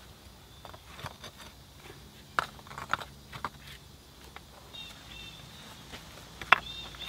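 Rough flat stones clacking and knocking against one another as they are set by hand, a few sharp knocks, the loudest one near the end. Short high chirps repeat in the background through the second half.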